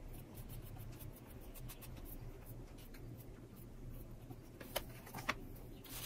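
Faint scratchy strokes of a paintbrush laying white chalk paint thickly onto a wooden drawer front, with two light clicks about a second before the end.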